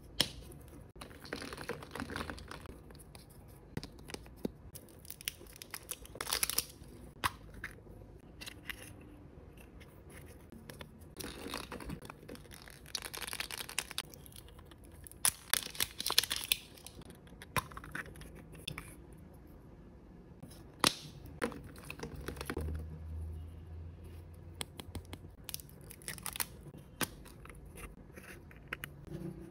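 Plastic surprise-egg capsules and toy balls being opened by hand: sharp clicks and snaps of the plastic halves, with several seconds at a time of crinkling and tearing of wrappers and packing paper.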